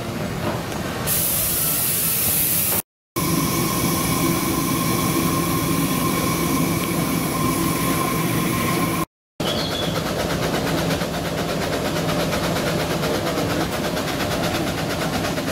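A 5-inch gauge live steam locomotive in steam, giving a steady hiss of steam. The sound breaks off briefly twice.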